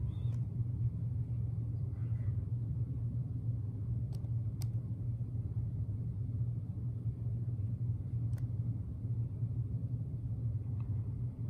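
Steady low rumble with a constant deep hum and a few faint ticks.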